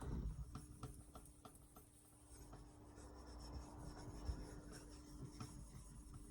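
Faint scratchy rubbing with scattered light clicks as a wet whetstone is handled and rubbed against a flat surface, under a faint steady hum.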